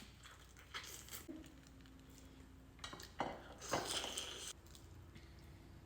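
Crackling and squishing of a cooked king crab knuckle's shell being broken apart and its meat pulled out, in a few short bursts, the loudest cluster a little past the middle.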